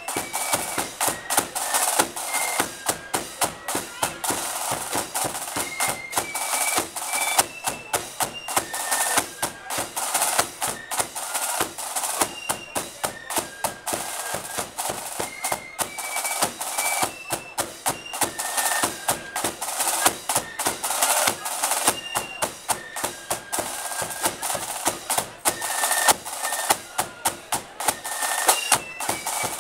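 Flute band playing a march: massed flutes carry the melody over sharp, regular snare drum strokes and rolls.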